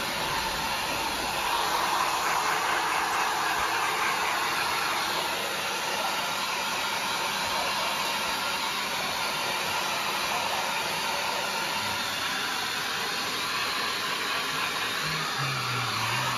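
Small handheld electric hair dryer blowing steadily as it dries a freshly bathed dog's damp coat. The rush of air swells slightly a couple of seconds in, then settles to an even level.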